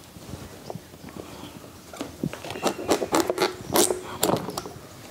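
A knife cutting and scraping into halves of ash gourd. A quick run of crisp cuts and scrapes starts about two seconds in.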